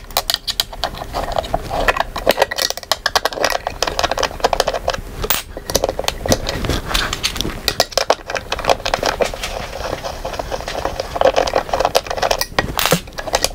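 Hand tool and bolts clicking and rattling against the metal seat mechanism of a gaming chair as it is unbolted: a dense, uneven run of small sharp clicks and knocks.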